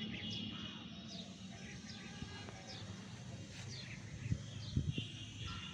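Birds chirping: short falling chirps, one or two a second, over a low steady hum, with two soft knocks about four to five seconds in.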